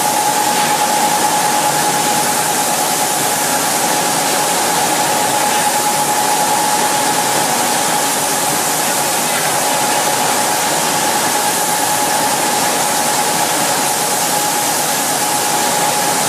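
Steady, loud rushing hiss of a fluorocarbon spray-coating booth at work, its reciprocator-mounted spray guns atomising coating onto the hanging profiles, with a steady whine running through it.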